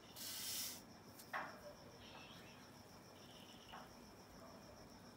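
Pen scratching on paper while drawing: a short scratchy stroke at the start, then a few fainter strokes. A faint, steady high-pitched tone runs underneath.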